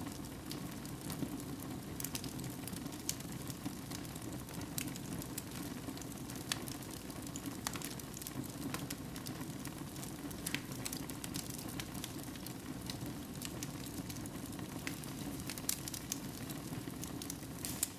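Wood fire burning in a fireplace: a steady low rush of flames with frequent irregular crackles and pops.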